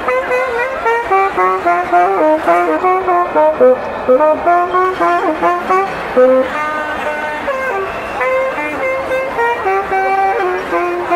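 A wind instrument playing a lively melody of quick, short notes, loud and close.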